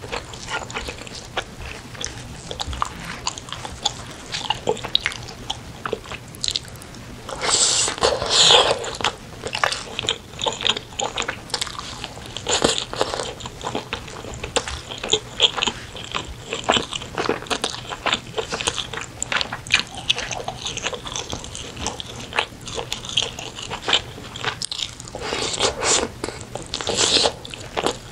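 Close-miked eating sounds: wet chewing and biting into pieces of spicy braised chicken, a run of irregular mouth clicks and smacks. There are louder clusters about eight seconds in and again near the end.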